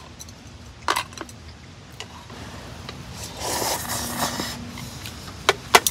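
Eating sounds from a metal camp bowl and chopsticks: a few light clinks, a noisy slurp of about a second as broth is drunk from the bowl, then two sharp clinks near the end.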